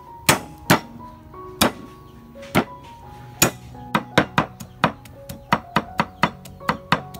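Cleaver chopping shallot and garlic on a thick round wooden chopping board: a few slow, separate strikes, then quicker steady chopping from about four seconds in, about four to five strikes a second. Light background music with plucked notes runs underneath.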